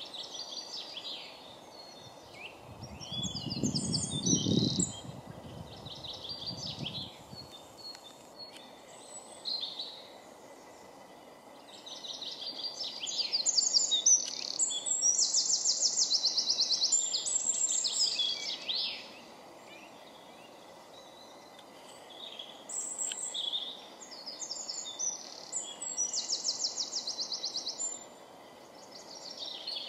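Eurasian nuthatch calling loudly: runs of clear notes, and twice a fast trill of rapidly repeated notes lasting a few seconds, the longer one about halfway through. A brief low rumble sounds a few seconds in.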